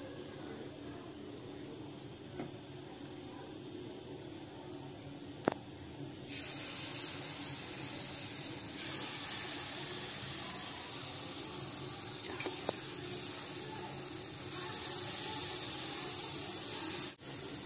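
Lumps of palm-fruit batter dropped into hot refined oil, sizzling and bubbling in a frying pan as deep-fried fritters, the sizzle setting in about six seconds in. A steady high-pitched whine runs underneath.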